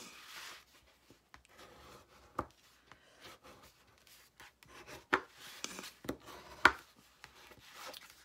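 A bone folder rubbed hard along the fold of a manila file folder to burnish the crease: dry scraping strokes of tool on cardstock, broken by a few sharp taps, the loudest about two-thirds of the way through.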